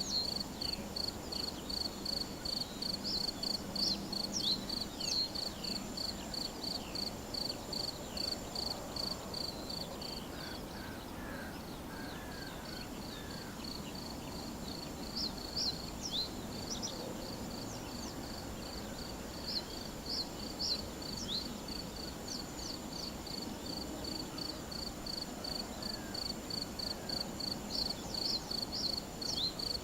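A cricket chirping in a steady run of high pulses, about three a second, that stops for several seconds in the middle and then starts again, over an outdoor meadow ambience with birds calling.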